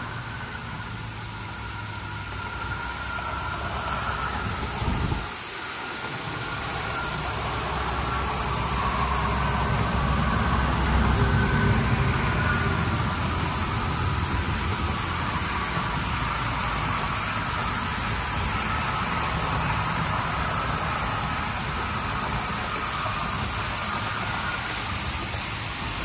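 Washworld Razor Edge touchless car wash machine spraying a car during its pre-soak cycle: a steady hiss of spray over the low running of the machine's pumps. The low rumble cuts out briefly about five seconds in, then the spray builds and holds steady.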